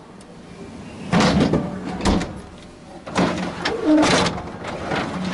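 Appliance doors or drawers being handled: a run of four clunks and slides in quick succession.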